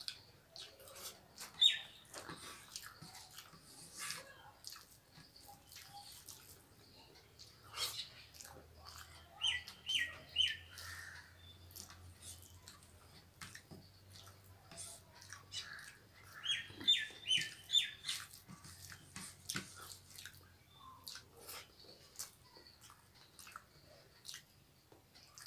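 Faint clicks and smacks of eating by hand, fingers scraping rice off a plastic plate and chewing. Twice a bird chirps three or four quick high notes in a row, the loudest sounds here.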